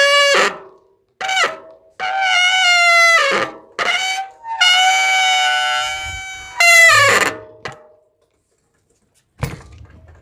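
Bicycle front disc brake squealing: about six high-pitched squeals as the brake is applied on the turning wheel, the longest near the middle lasting about a second and a half. A low thump follows near the end.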